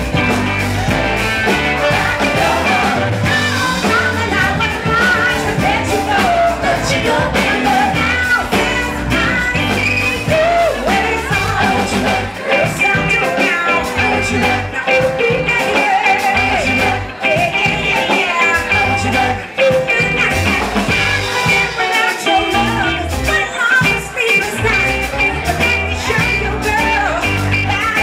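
Live band playing an upbeat song: several singers into microphones over electric guitar and drums with a steady beat.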